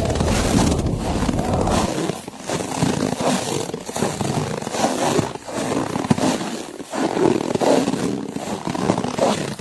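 Blizzard wind rushing and gusting, swelling and easing every second or so, with crunching snow.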